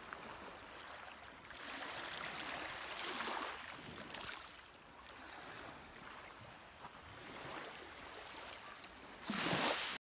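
Small waves lapping and washing on a pebbly shore, a soft rush that swells and fades every few seconds, with a louder rush near the end.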